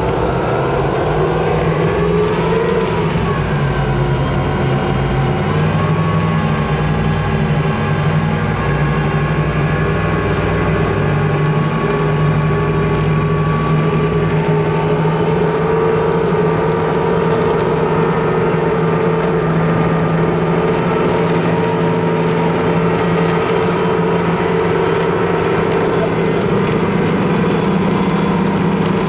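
Mercruiser engine of a racing powerboat running steadily. Its pitch dips and rises a little in the first few seconds, then holds even.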